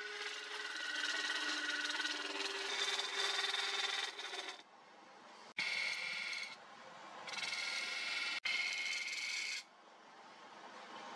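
Hand chisel cutting a wooden knife handle spinning on a lathe: a steady scraping with a faint ringing tone that shifts in pitch. It stops about four and a half seconds in, then comes back in two shorter spells that start and stop abruptly, the last ending near the close.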